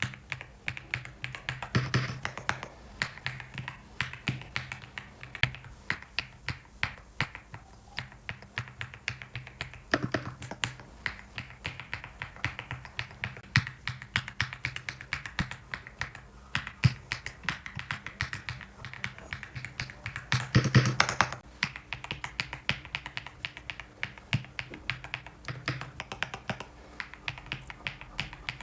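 Typing on a custom mechanical keyboard with a deep, thocky keystroke sound: quick, irregular key clicks several a second, with louder runs of strokes about 2, 10 and 21 seconds in.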